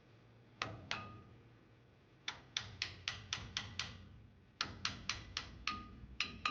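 Light hammer taps on steel brake parts in quick runs, about five a second at the fastest, some leaving a short metallic ring.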